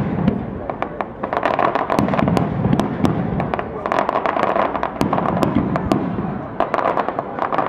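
Aerial fireworks display: shells bursting overhead in quick succession, with many sharp bangs and crackles packed closely together.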